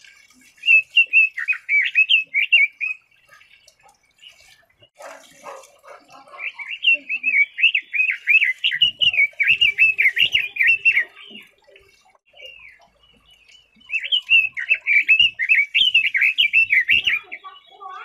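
Red-billed leiothrix singing: three phrases of rapid, high warbling notes, the middle one lasting about five seconds.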